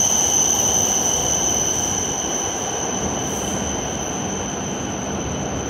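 Shinkansen train braking to a stop at the platform, a steady high-pitched brake squeal over the rumble of the train, easing slightly in level.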